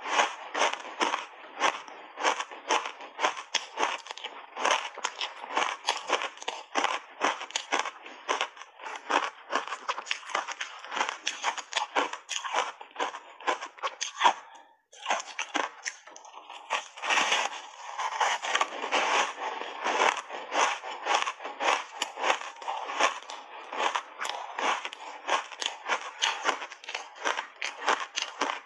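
Crunchy block ice coated in milk powder being chewed with big bites, close to a clip-on microphone: a rapid, continuous run of crisp crunches, with a short break a little past halfway.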